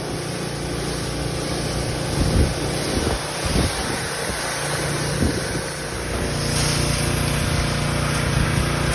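Pressure washer spraying water inside a grain trailer: a steady rushing hiss of spray over a motor's hum, louder from about six and a half seconds in, with a few low knocks in the middle.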